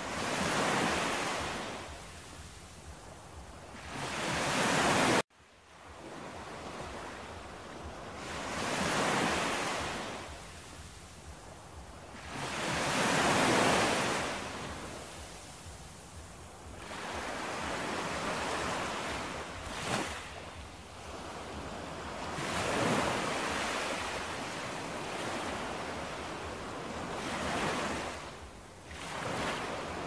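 Ocean surf: waves washing onto a shore, each one swelling and falling away every few seconds. About five seconds in the sound drops out abruptly and starts again, and a single sharp tick comes about two-thirds through.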